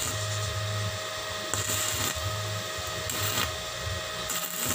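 Stick arc welding with an MIT-320 inverter welding machine: the electrode's arc crackles and sizzles, loudest in bursts near 1.5 s, 3 s and the end. A steady whine and low hum run underneath. The machine is welding again after its burnt transistors were replaced.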